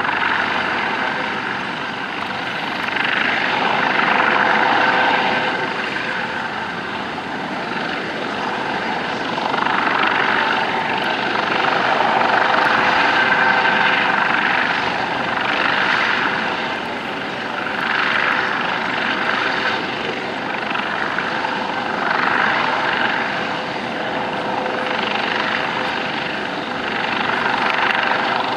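US Coast Guard MH-65 Dolphin twin-turbine helicopter hovering low, a loud steady rotor and engine noise with a faint steady whine, swelling and easing every couple of seconds.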